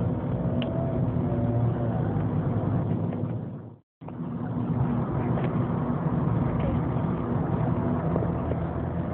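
Steady engine hum and road noise of a moving road vehicle, heard from inside it. The sound cuts out abruptly for a moment about four seconds in, then returns.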